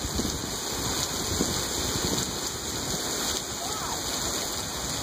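Heavy downpour of rain: a steady, even hiss of drops pelting the surfaces around the porch.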